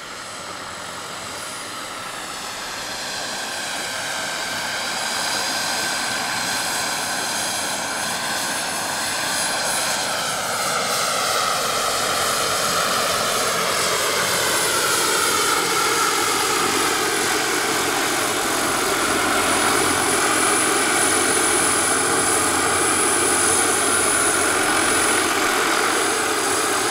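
Turbine-powered large-scale RC model helicopter (Vario SA-315B Lama) in flight: a steady high turbine whine over the rotor sound, growing louder as it comes closer, with its tones sliding down and back up in pitch as it moves.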